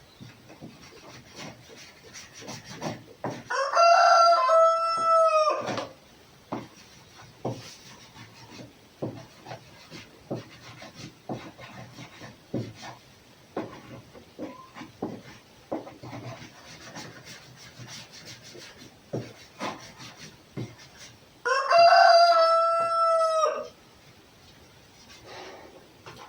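A rooster crowing twice, each crow about two seconds long, the second coming about eighteen seconds after the first. Faint intermittent scraping and clicks run between the crows.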